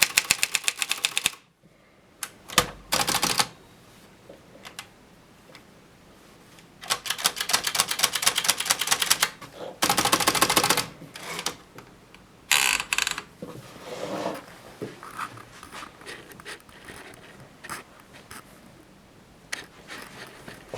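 Kolibri portable typewriter being typed on: quick runs of key strikes at the start and again about a third of the way through, with single mechanical clunks and short rattles of the carriage mechanism in between.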